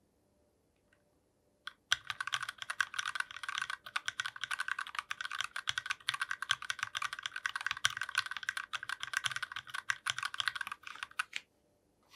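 Rapid, continuous typing on a mechanical keyboard with factory-lubed Gateron Pink linear switches, PBT keycaps and a brass plate in a foam-dampened Tofu60 case. A single keystroke comes at about two seconds in, then a fast run of keystrokes lasts about nine seconds and stops shortly before the end.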